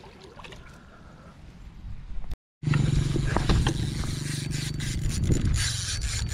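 Quiet for about two seconds, then a spinning reel's drag buzzing steadily in a fast, even run of clicks as a hooked fish pulls line off against a tightly set drag.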